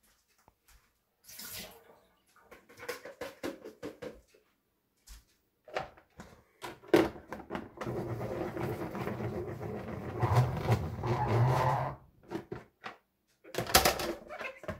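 Plastic salad spinner drying rinsed lettuce: clatter as the basket and lid are handled, then the basket spinning steadily for about four seconds, followed by a clatter near the end as the lid comes off.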